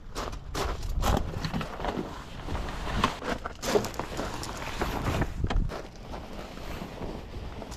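Footsteps crunching on gravel and a fabric boat cover rustling as it is pulled back, with wind buffeting the microphone.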